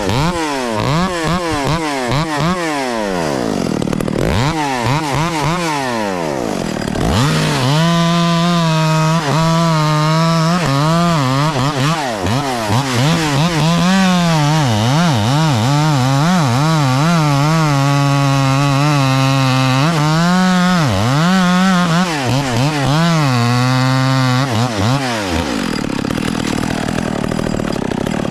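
Echo 670 two-stroke chainsaw blipped up and down in quick revs for the first several seconds, then held at full throttle cutting through wood, its pitch dipping repeatedly as the chain takes load. Near the end the engine drops off.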